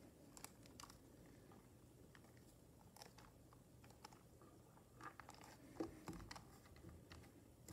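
Faint scattered clicks and taps of hands handling a hard plastic Hasbro I-Dog robot toy, with a small cluster of louder clicks near the end.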